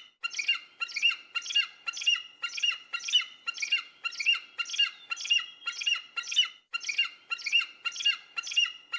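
Eagle calling: a long, rapid series of high-pitched chirping calls, about two to three a second, with brief pauses about halfway through.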